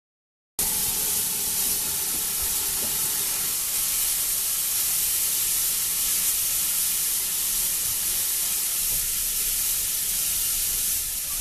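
Steam locomotive releasing steam around its front end with a loud, steady hiss that starts suddenly about half a second in.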